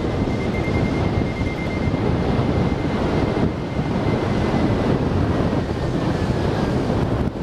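Airflow rushing over a hang-glider-mounted camera's microphone in flight: loud, steady wind noise. A faint, thin, high steady tone sits above it and drifts slightly lower and fades near the end.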